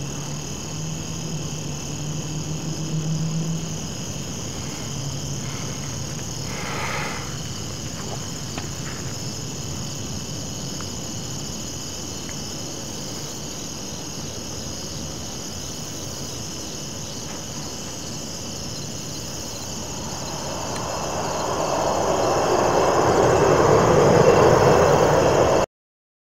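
Night ambience of crickets chirping steadily, with a low hum in the first few seconds. Over the last six seconds a rushing noise swells louder, then everything cuts off abruptly into silence.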